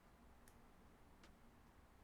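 Near silence with two faint, short computer mouse clicks, about half a second and a second and a quarter in.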